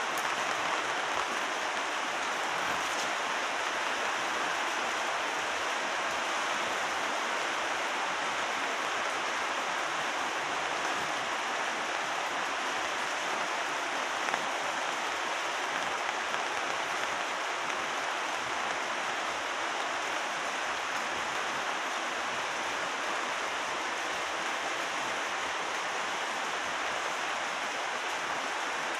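Steady rainfall on wet paving and potted plants.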